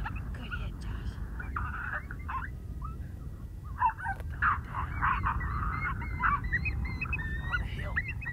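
A group of coyotes yipping and howling in a wavering, yelping chorus, with a short lull about a third of the way in before it builds again. Low wind rumble on the microphone runs underneath.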